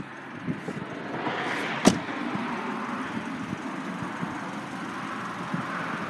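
A car door shut once, a single sharp knock about two seconds in, over a steady rushing noise.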